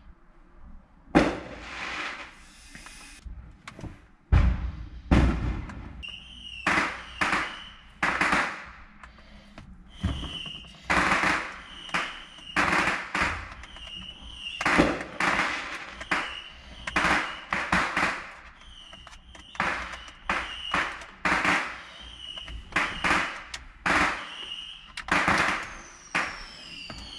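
Fireworks going off: a few single loud bangs, then from about six seconds in a steady run of bangs and crackles about two a second, many with a short high whistle. Near the end one whistle falls in pitch.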